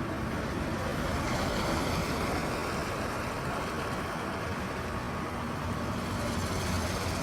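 Street traffic: vehicle engines running and passing, over a steady even hiss of road noise.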